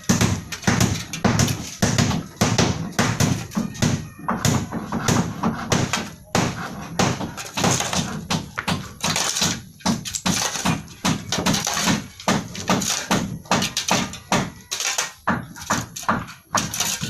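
Rapid, repeated knocks and taps, several a second, with dull thuds among sharper clicks.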